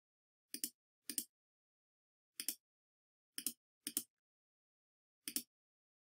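Six computer clicks at uneven intervals, each a quick press-and-release double tick, as shapes are selected and colours picked in design software.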